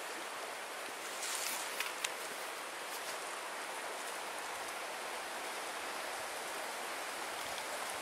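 Steady rushing of running water from a nearby stream, with a few faint crackles about a second or two in.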